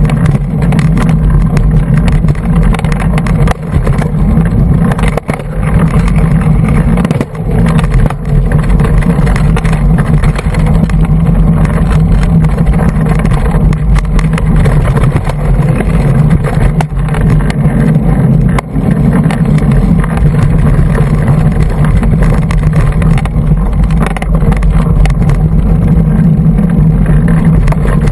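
Steady, loud wind rumble on a GoPro Hero2's microphone, with knocks and rattles from a hardtail mountain bike riding rough singletrack.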